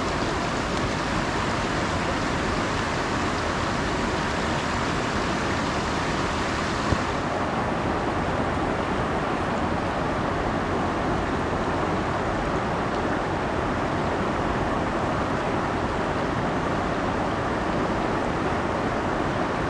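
Shallow, fast stream water rushing steadily over a rocky riffle, a constant hiss-like wash; it turns duller about seven seconds in.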